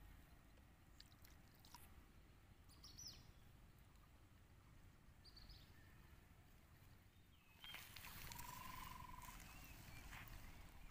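Quiet outdoor ambience with a few faint bird chirps. About three-quarters of the way through, the background steps up in level and a bird's short, clear calls come in, one of them a wavering note.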